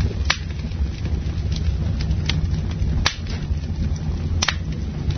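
Recorded crackling fire: a steady low roar with sharp pops and cracks about once a second.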